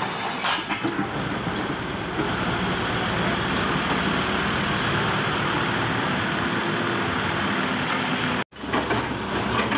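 Kobelco SK135SR hydraulic excavator's diesel engine running steadily, heard close up. The sound cuts out for a split second about eight and a half seconds in, then resumes.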